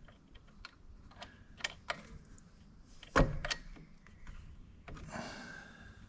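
Shifter cables and their metal fittings being handled and fitted: scattered light clicks, one louder clunk about three seconds in, and a short scraping rustle near the end.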